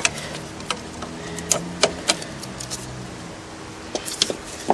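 Scattered sharp clicks and light metallic knocks, about eight in all, from tools and car parts being handled, over a faint steady hum that fades out a little past halfway.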